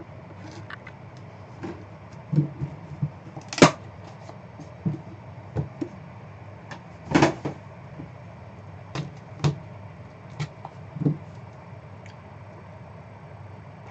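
Trading cards and their packaging being handled on a table: scattered light clicks, taps and knocks, with two sharper, louder snaps a few seconds apart.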